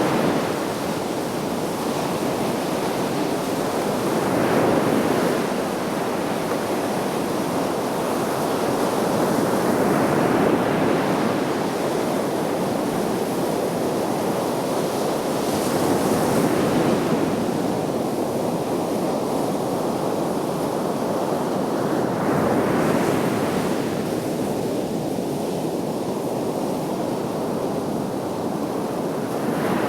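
Sea surf: waves breaking and washing in roughly every six seconds, with a steady rush of water between them.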